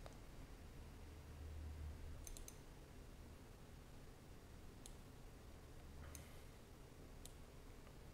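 Faint computer mouse clicks over low hum: a quick run of clicks about two seconds in, then three single clicks about a second apart.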